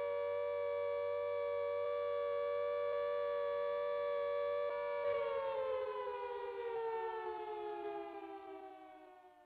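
Siren sample triggered from the Numark Scratch mixer's Serato sampler: a steady siren tone that, about halfway through, slides down in pitch and fades away.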